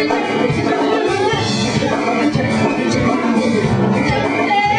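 Swing band with a horn section playing.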